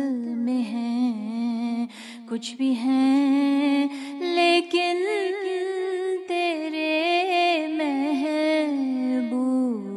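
A single voice humming a slow, ornamented wordless melody in the style of a devotional dua or naat, with long held notes that waver and glide in pitch. There is a brief dip about two seconds in.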